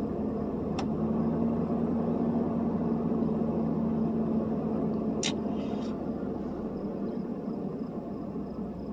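1997 Ford Expedition's 5.4-litre Triton V8 idling steadily, with two sharp clicks, about one and five seconds in.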